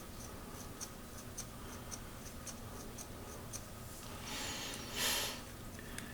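Small spring-action scissors of a Leatherman Charge TTI multi-tool snipping open and shut, a light click about three times a second, then a brief rustle near the end.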